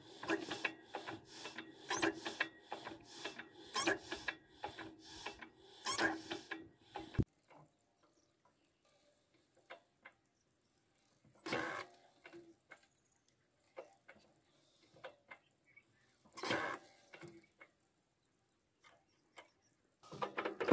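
Single-cylinder 12 hp stationary diesel engine being turned over by hand: an even mechanical clicking, about three clicks a second, over a steady hum, which stops abruptly about seven seconds in. After that it is mostly quiet, with two brief noises.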